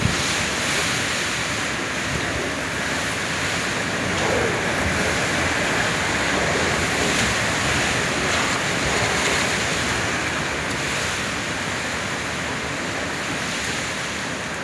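Heavy rain and strong gusting wind of a sudden thunderstorm: a loud, steady rushing noise that swells a little through the middle and eases slightly near the end.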